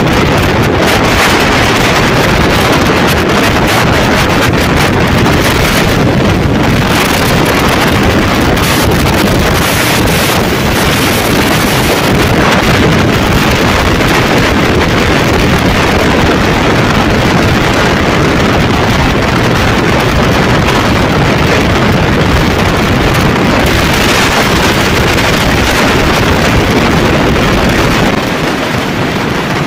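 Loud wind buffeting the microphone on a moving motorcycle, with road and engine noise underneath; it eases a little near the end.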